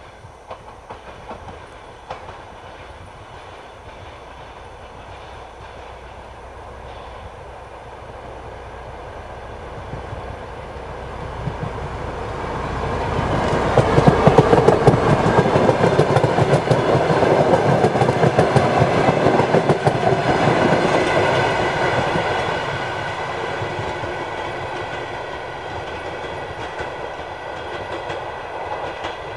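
DR1A diesel multiple unit approaching and passing at speed, its engine running and wheels clicking over the rail joints. It grows steadily louder, is loudest for several seconds from about halfway through as it goes by, then fades as it moves away.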